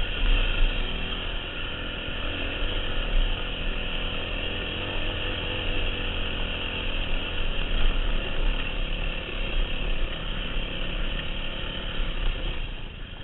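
Dirt bike's 250 cc four-stroke engine running steadily as it rides down a rocky dirt trail, with wind buffeting the helmet-mounted microphone.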